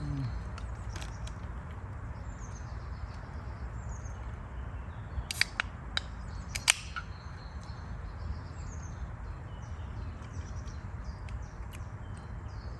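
Small birds chirping over a steady low rumble of wind on the microphone, with a few sharp clicks a little past halfway.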